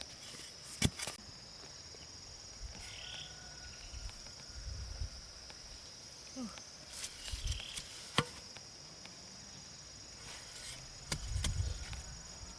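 Steady high-pitched chorus of insects in the background, with a few sharp knocks about a second in and again about eight seconds in, and some low thuds.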